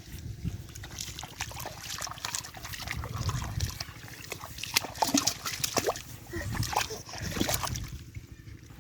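Irregular splashing and sloshing in shallow water, the sound of hands groping and churning through a muddy drain for fish.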